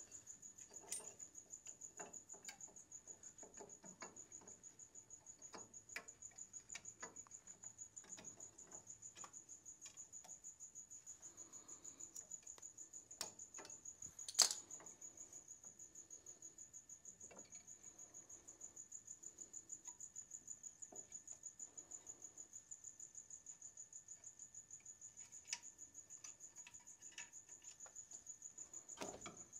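Faint, steady chirping of a cricket, a high tone pulsing in an even rhythm throughout. Over it are scattered light metallic clicks and clinks from drum-brake shoe hardware being handled and fitted, with one sharper clink about halfway.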